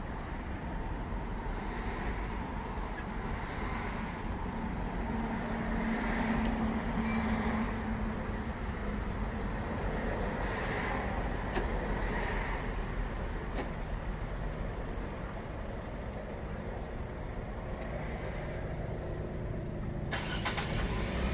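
Renault Samsung SM5 engine running at idle after a remote start, a steady low rumble with a brief hum about five seconds in and a hiss coming in near the end.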